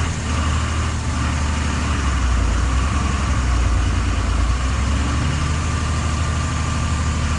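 Heavy truck engine idling with a steady low drone, over the constant rush of floodwater pouring across the road.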